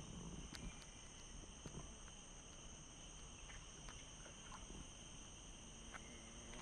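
Faint, steady insect chorus in tropical forest, with a few scattered soft clicks.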